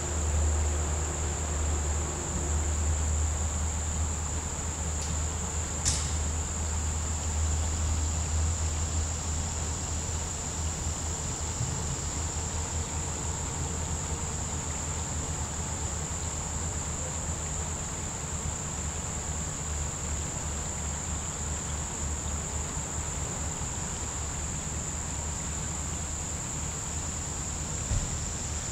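A steady, high-pitched chorus of insects shrilling without a break, over a low rumble that is strongest in the first ten seconds and then dies down. There is a brief click about six seconds in.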